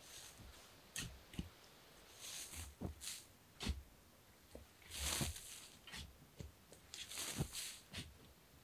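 Shovel digging sandy forest soil: the blade bites in with short scraping knocks, and shovelfuls of sand are tossed onto the heap with a brief hissing spill, three times.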